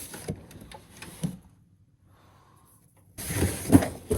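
Boxes and plastic phone cases being handled and rummaged through: a few light knocks and rustles, a pause of nearly two seconds, then louder clattering handling about three seconds in.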